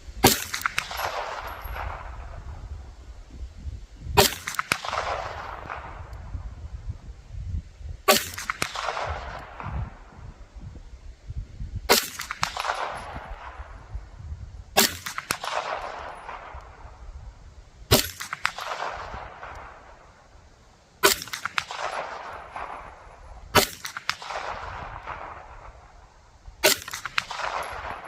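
Smith & Wesson FPC 9mm pistol carbine fired slowly for aimed shots: nine sharp shots about three to four seconds apart, each followed by a long echo that fades away.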